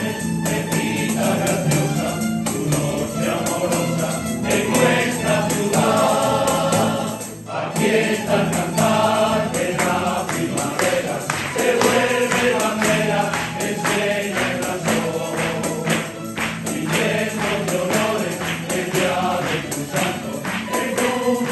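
A song with a choir singing over steady percussion, with a brief dip about seven seconds in.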